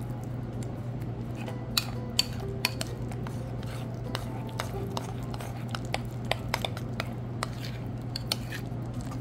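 Spoon stirring thick Greek-yogurt dressing in a ceramic bowl, clinking against the bowl many times at uneven intervals, over a steady low hum.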